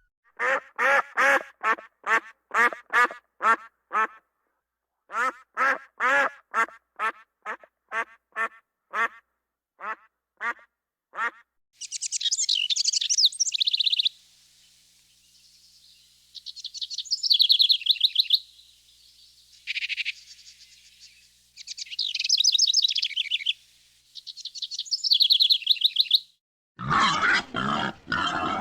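A duck quacking in a long run of short, repeated calls with a brief pause partway, followed by a wren singing several high, rapid trilled phrases. Near the end, a wild boar's grunts begin.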